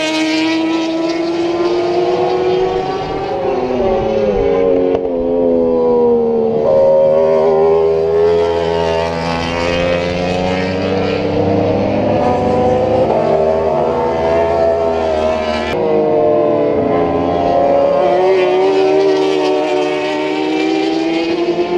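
Racing superbike engines running hard on the circuit, their pitch climbing and then dropping back in sudden steps again and again through the gear changes. Several bikes can be heard at once.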